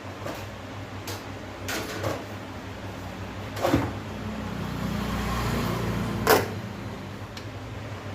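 Clicks, knocks and rubbing of plastic and sheet parts being handled while an LED TV is taken apart, with a rumbling scrape midway and a sharp knock near its end.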